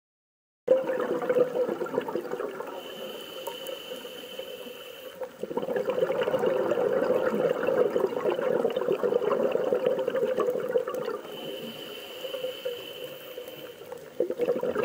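Bubbling, crackling water noise, as heard underwater, starting abruptly about a second in. It is loud for two long stretches and broken by two quieter spells that carry a thin steady high hiss.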